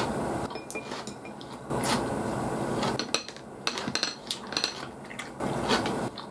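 Small clicks and clinks of chopsticks and hard whelk shells knocking on ceramic plates, bunched into a quick run of sharp taps about three to five seconds in.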